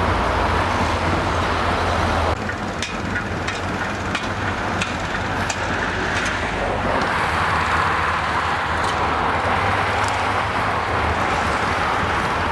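Steady outdoor roadside noise with a few scattered light clicks. The sound changes abruptly about two seconds in.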